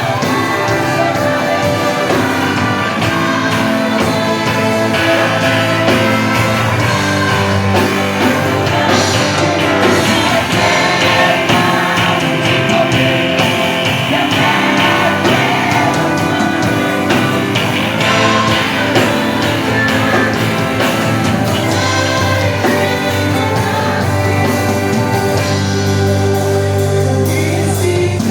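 Gospel song: singing over full band accompaniment, continuous.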